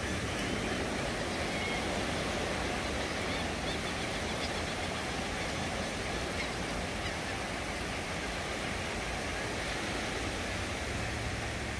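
Ocean surf washing up on a sandy beach, a steady rush of breaking waves.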